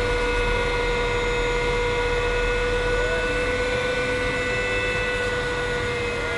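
Cockpit noise of an MD 530F helicopter descending in autorotation: a constant rushing of rotor and air under a steady high whine, which sags slightly in pitch near the end.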